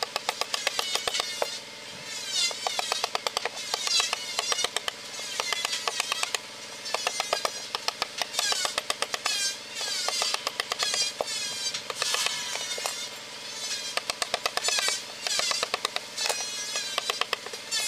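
Rapid runs of sharp taps: a wood-carving chisel struck with a mallet, cutting into wood, pausing briefly between runs.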